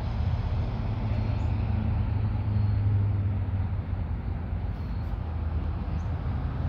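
Steady low hum of an idling vehicle engine, swelling a little about two to three seconds in.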